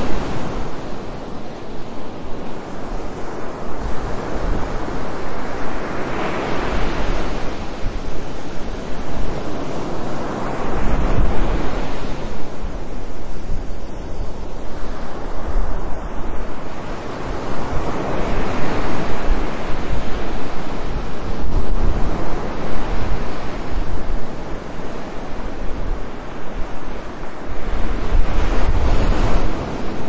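Ocean surf: waves breaking and washing up the shore, the noise swelling and ebbing every five or six seconds, with wind rumbling on the microphone.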